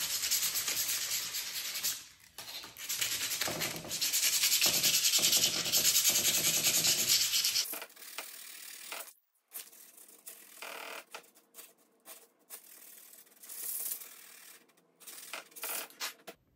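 Coarse 40-grit sandpaper on a hand sanding pad rubbed quickly back and forth over a steel knife tang, scuffing the bare metal so the handle epoxy will grip. The sanding is loud for the first several seconds with a brief break about two seconds in, then drops to fainter, scattered strokes.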